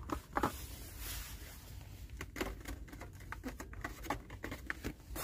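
Irregular light clicks and taps of a plastic-cased diecast car package being handled and hung back on a metal store peg hook, over a low steady hum.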